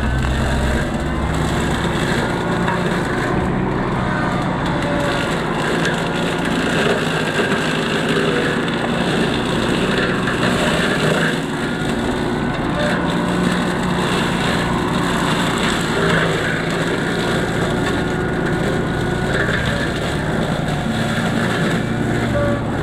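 Hydraulic brush-cutter head with bush hog blades on a small excavator, chopping and splintering brush and small trees, over the steady running of the excavator's engine and hydraulics.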